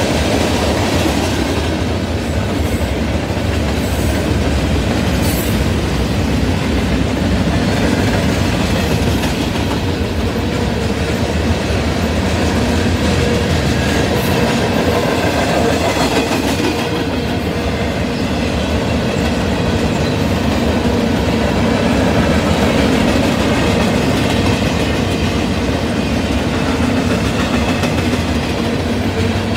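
Freight cars of a Union Pacific mixed freight train rolling past: tank cars, covered hoppers and boxcars, their steel wheels running on the rails in a steady, loud rumble.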